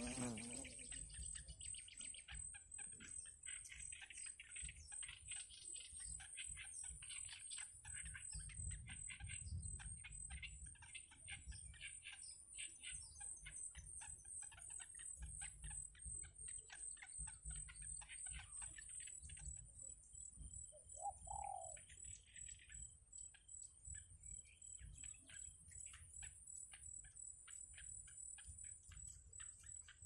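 Yellow bittern nestlings giving quick, high begging chirps in the nest, over a steady high-pitched drone. A single lower, louder call comes about two-thirds of the way through.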